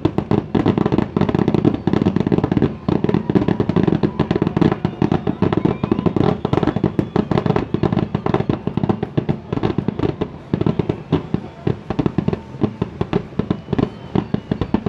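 Fireworks finale barrage: aerial shells going off in a rapid, near-continuous string of bangs, many each second. The bangs space out a little in the last few seconds.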